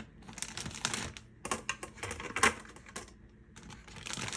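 Frozen garlic-ginger-avocado-oil cubes and a plastic freezer bag being handled: light, irregular clicking and rustling in three uneven bursts.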